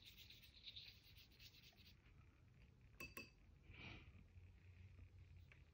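Near silence, with faint light scratching early on and a single light clink about three seconds in.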